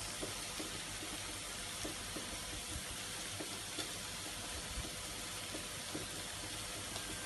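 Steady sizzling hiss of pork cooking on a tabletop grill, with faint scattered clicks and pops.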